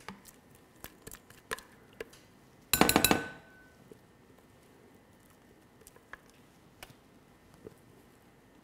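A metal utensil clicking and scraping against a measuring jug while scooping out whipped vegan butter. About three seconds in comes a quick burst of rapid knocks against the jug, like tapping the utensil clean, leaving a short ring.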